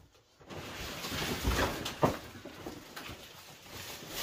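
Clear plastic wrapping around a rolled inflatable boat crinkling and rustling as the boat is hauled up out of a cardboard box, with a few sharper crackles, the loudest about two seconds in.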